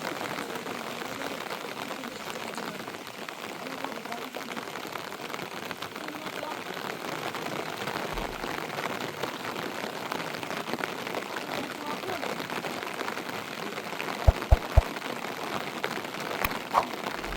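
Steady rain falling, an even hiss, with a few short low thuds about three-quarters of the way through.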